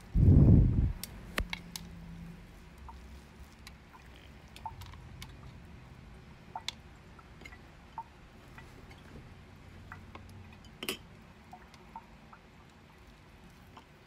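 A dull low thump in the first second, then scattered faint clicks and taps of things being handled on a kitchen counter, with one sharper click near the end.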